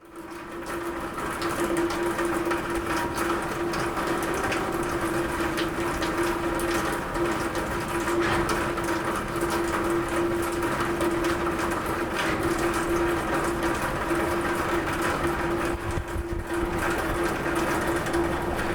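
Rain falling on a roof: a dense steady patter of many drops, with a steady low hum running underneath. The sound fades in over the first second or two.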